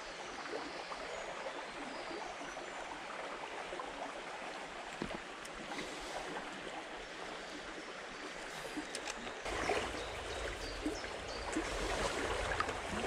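A small shallow stream running over riffles: a steady rush of flowing water. About nine seconds in, a low rumble joins it.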